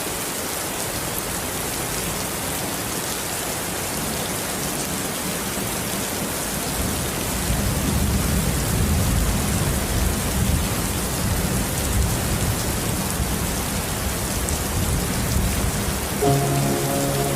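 Steady rain falling, an even hiss of drops. From about seven seconds in, a low rumble of thunder swells underneath, and near the end soft sustained music chords come in.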